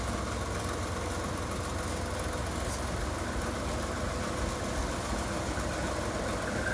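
Small shunting locomotive's engine running steadily with a low rumble as it pulls a short train of old passenger carriages at walking pace. A thin high squeal starts near the end.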